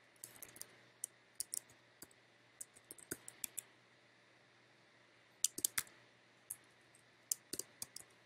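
Typing on a computer keyboard: irregular runs of light keystroke clicks, with a pause of about two seconds midway before a quick burst of keys.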